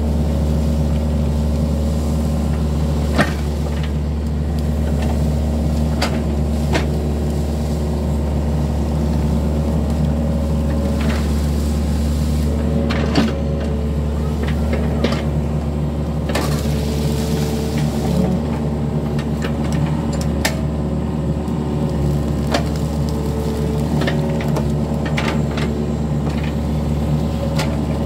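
Yanmar mini excavator's diesel engine running steadily as the machine digs out a ditch, with a few sharp knocks and clanks scattered through.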